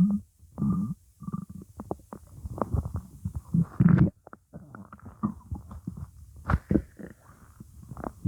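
Stomach growling: an irregular run of gurgles and rumbles, with a few sharp pops among them.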